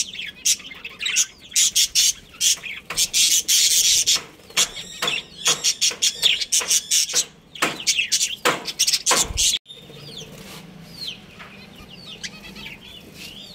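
Budgerigars chattering: rapid, loud, sharp chirps and squawks, which drop abruptly about nine and a half seconds in to softer, sparser chirping.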